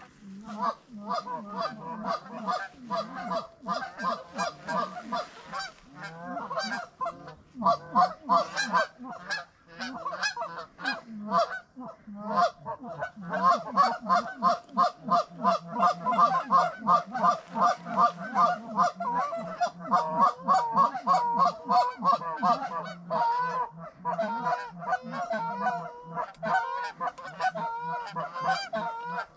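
Canada geese honking and clucking in rapid, overlapping calls, a few every second, almost without a break. The calling is densest through the second half.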